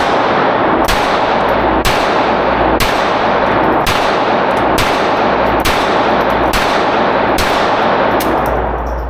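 Pistol shots fired one at a time at a steady pace, about one a second. Each shot sharp and followed by a long echoing ring that fills the gaps, the last shot about seven and a half seconds in.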